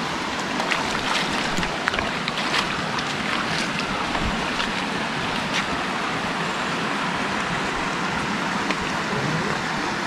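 Stream water rushing steadily over rocks, with scattered small splashes.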